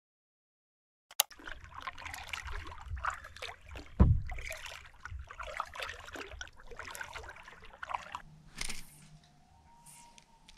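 Kayak paddle strokes dipping and splashing in the water after about a second of silence, with one heavy low thump about four seconds in. The paddling stops about eight seconds in and it goes quieter.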